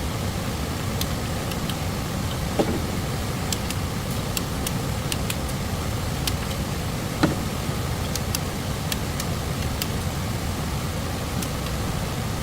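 Steady rushing of a stream, with scattered light clicks and two sharper knocks, one a few seconds in and one about midway.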